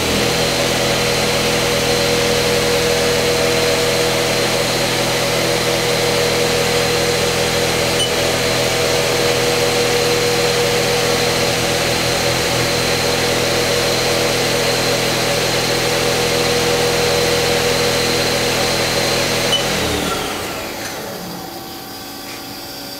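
Haas SL30T CNC lathe spindle and chuck running at about 2,500 rpm with a steady high whine over a hum. It spins down and stops about 20 seconds in. The spindle runs nice and quiet, a healthy sign on a machine being tested.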